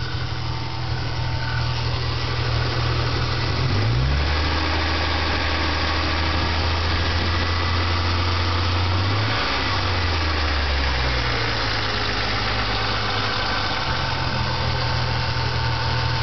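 1997 Ford Mustang 3.8-litre V6 engine running, its speed dropping about four seconds in and picking up again later. The owner hears a knock from it between 1000 and 1500 rpm and can't tell whether it is a weak lifter or a bad rod bearing; he has been told it is just lifters.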